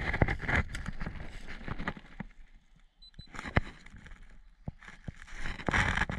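Rustling and handling noise as a player moves against vegetation and gear, with scattered sharp clicks. It dies down to near quiet about halfway, then rises to louder rustling near the end as he shifts position.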